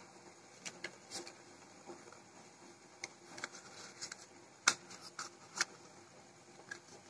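Faint handling sounds of hands shaping and filling cone-shaped sweets: scattered light clicks and soft rustling, with a few sharper clicks a little past the middle.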